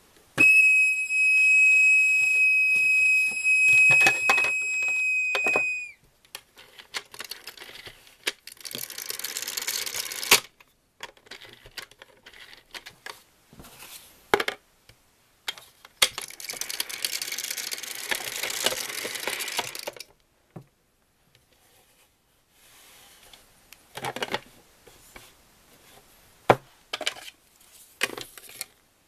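Toy tea pot from a 1987 Fisher-Price kitchen set giving a loud, steady high whistle for about five seconds that sags in pitch as it stops. Then two bursts of scratchy hiss, each a few seconds long, and scattered clicks and knocks of plastic toy pieces being handled.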